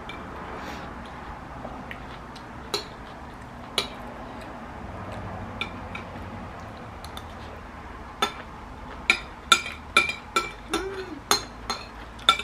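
A metal spoon clinking and scraping against a ceramic bowl while scooping food: a few scattered taps at first, then a quick run of clinks, about two a second, in the last four seconds.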